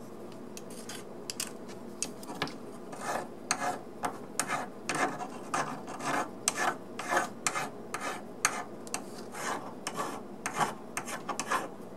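A hand flat file scraping along the edges of a die-cast metal locomotive underframe, taking off casting flash: short rasping strokes, about two to three a second, starting about a second in.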